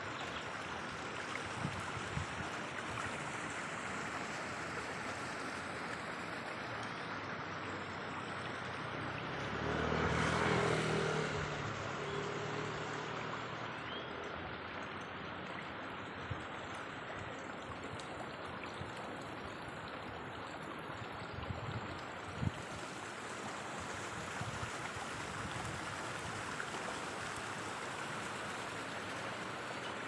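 Steady rushing outdoor noise, with a motor vehicle passing by about ten seconds in, its engine swelling and then fading over a few seconds.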